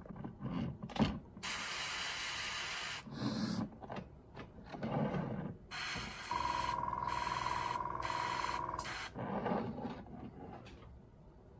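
Paint being sprayed onto a model for weathering: two bursts of hiss that start and stop sharply, the first about a second and a half long and the second about three seconds long with a steady whistling tone. Soft handling noises fall between the bursts.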